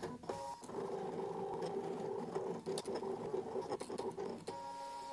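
Brother ScanNCut cutting machine drawing with a ballpoint pen: its motors whir steadily as the pen carriage and mat move, with a few small clicks. The sound turns to a steadier whine near the end, then stops suddenly just after.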